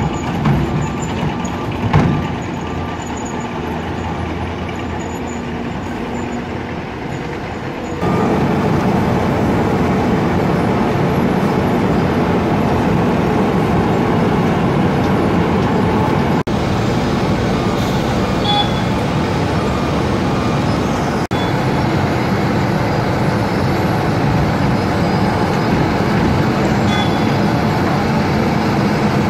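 Heavy diesel road-works machinery running: first a skid-steer loader with a sweeper attachment, with a sharp knock about 2 s in, then, about 8 s in, a sudden switch to the louder, steady grinding of a road milling machine cutting off the old asphalt surface and loading the millings onto its conveyor into a dump truck.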